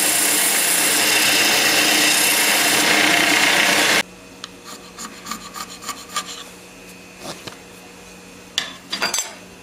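Belt grinder grinding the end of a steel bastard file to sharpen it into a scraper: a loud, steady grinding hiss that cuts off about four seconds in. After it, quieter short scraping strokes of hand-scraping a cast metal mating surface, over a faint low hum.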